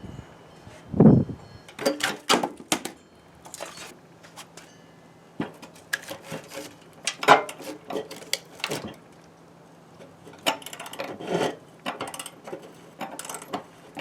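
Irregular clanks, knocks and scrapes of hand tools and a wooden block against the steel mower deck and blade as a stuck, rusted mower blade is worked loose. The loudest is a heavy knock about a second in.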